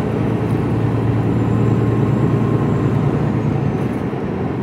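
Steady engine drone and road noise inside the cab of an HGV container truck on the move.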